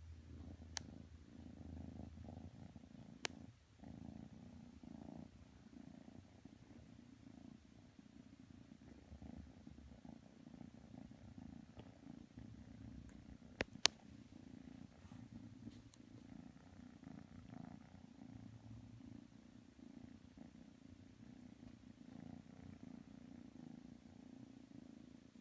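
Kitten purring steadily and softly. A few sharp clicks cut through the purr, the loudest two close together about 14 seconds in.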